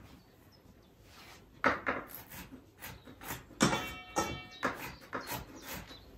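Kitchen knife chopping walnuts on a wooden cutting board: a run of sharp, irregular chops about three a second, starting a second and a half in.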